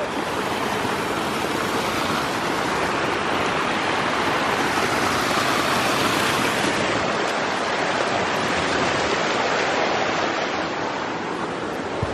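Small mountain creek cascading over rocks past a log: a steady, loud rush of water, brighter in the first half and duller near the end.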